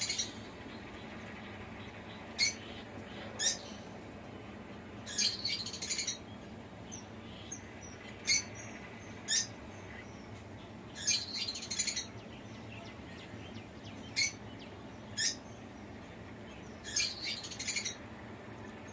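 Small birds chirping: about a second of rapid high twittering every six seconds or so, with two single sharp chirps between each bout, over a faint steady background hiss.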